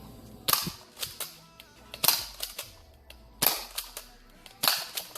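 Airsoft gun firing four sharp shots, evenly spaced about a second and a quarter apart.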